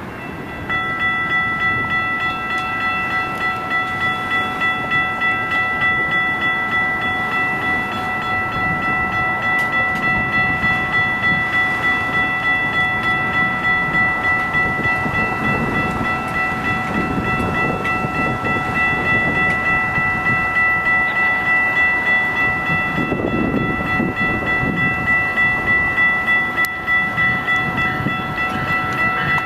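Railroad grade-crossing warning bells ringing on and on in a quick, even pulse, switching on just under a second in. Under them, the rumble of an approaching Amtrak passenger train led by a Siemens Charger diesel locomotive grows through the second half.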